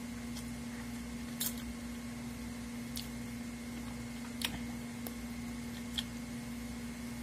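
Close-up eating sounds from fish moqueca with farinha eaten by hand: a handful of short wet mouth clicks and lip smacks as fingers go to the mouth and the food is chewed, over a steady low hum.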